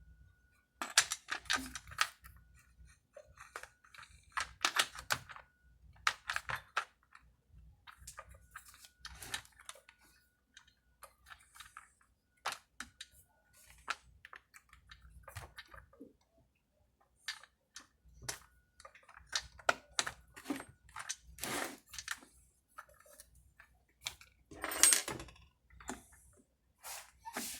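Top cover of a Husqvarna 392XP chainsaw being fitted and coaxed into place: irregular sharp clicks, taps and knocks as the cover is pressed and worked against the saw's body, with a louder knock or two near the end.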